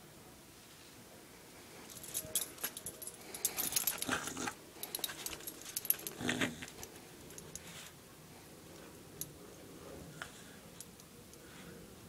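Small terrier playing tug with a plush toy: growling in short bursts amid scuffling and the jingle of its collar tags. Busiest between about two and seven seconds in, then only a few faint clicks.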